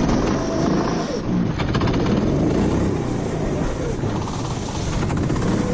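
Racing kart's four-stroke engine running hard, its revs rising and falling through corners, over a steady rush of wind and tyre spray on a wet track.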